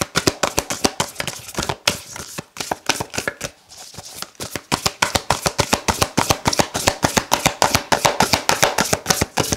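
A tarot deck being shuffled by hand, one packet of cards dropped into the other: a quick, even patter of card slaps, several a second, thinning briefly about four seconds in and then coming denser and louder.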